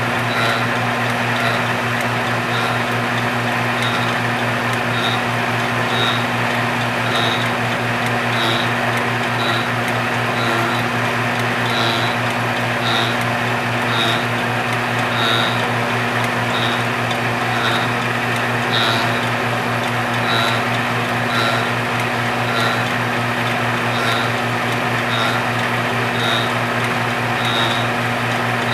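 Belt-driven fly cutter on a rose engine ornamental lathe running steadily with a hum as it cuts a design into an ash workpiece, with a faint high tick about once a second.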